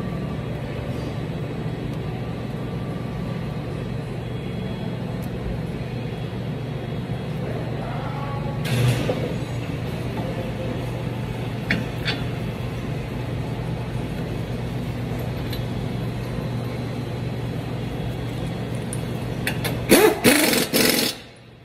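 A steady low machine hum, with a single clank about nine seconds in and a quick run of metallic clanks and knocks near the end as the brake caliper is handled, after which the hum cuts off.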